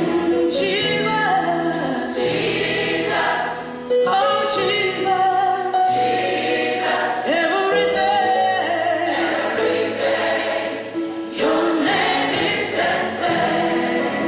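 Gospel choir singing, with a woman singing lead into a microphone over it.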